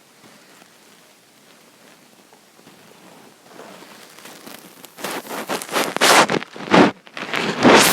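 Bedding and clothes rustling as a sleeper tosses and turns: a faint hiss at first, then several loud bursts of rustling from about five seconds in.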